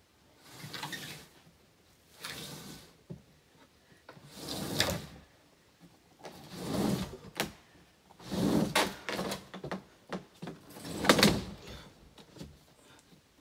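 Wooden wall panels of an elevated deer blind being shoved and dragged across its plywood floor: a series of scrapes about every two seconds, with a few sharp knocks.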